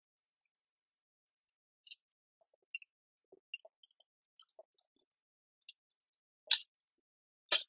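Light clicks and small metallic clinks at irregular intervals, with a louder knock about six and a half seconds in: small parts and tools being handled by hand.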